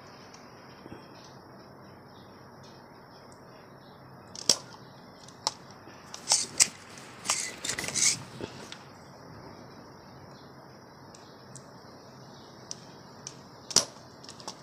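Small metal hand tools being handled and set down at an electronics repair bench: scattered sharp clicks and scrapes, a cluster around the middle and one more near the end, over a steady low hiss.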